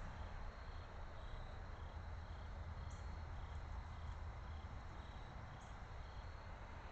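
Crickets chirping steadily, about two short high chirps a second, over a constant low rumble and hiss.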